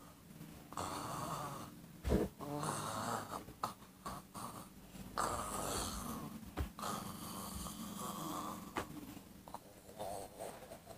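A man's raspy, throaty zombie-like groans, several drawn-out ones in a row with short pauses between.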